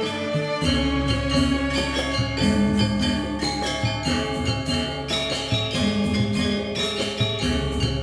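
Gamelan music: metallophones struck in a quick, busy pattern of pitched notes, with a deep low tone sounding beneath them from about a second in.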